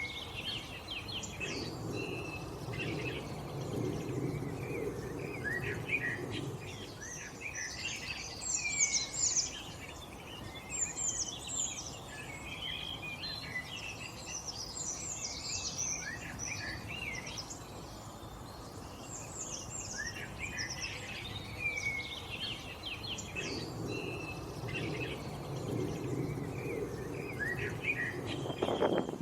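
Several birds chirping and calling over one another in quick, high, whistled notes. A low rumble rises under them twice, for a few seconds near the start and again near the end.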